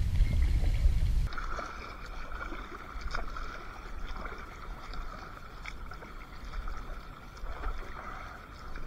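Paddle strokes and water lapping and gurgling around inflatable kayaks. A loud low rumble for about the first second stops abruptly.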